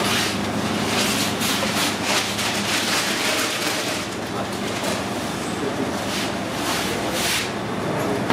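Busy pizzeria kitchen noise: a steady low machine hum under irregular clattering and rustling.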